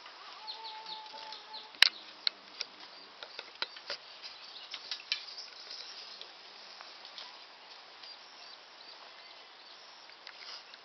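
Sharp clicks and taps of hand tools being handled on the ground, the loudest about two seconds in and thinning out after about six seconds, over a steady high insect buzz.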